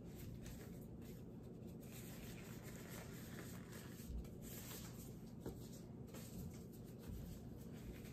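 Disposable exam gloves being pulled onto the hands: faint rubbing and rustling of thin glove material, with a few soft clicks.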